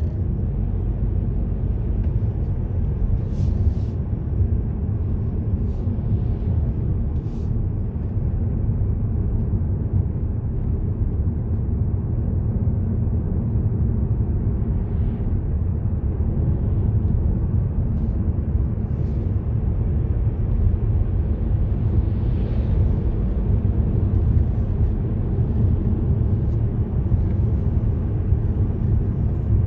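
Steady low rumble of a car being driven: engine and tyre road noise, with no changes in pace.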